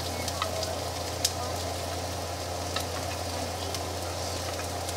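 Chopped onions sizzling as they sauté in oil in a nonstick frying pan, over a steady low hum. A few sharp clicks of a wooden spatula against the pan cut through, the loudest about a second in.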